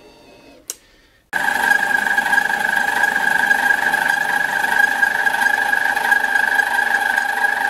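Harbor Freight mini metal lathe switching on about a second in and running steadily, its motor and gearing giving a steady high whine over a hiss.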